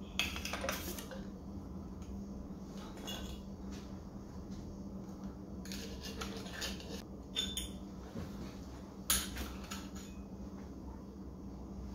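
Scattered metallic clinks and clicks as a universal fork compression tool is fitted onto a Showa motorcycle fork, with the loudest clatter near the start and again about nine seconds in.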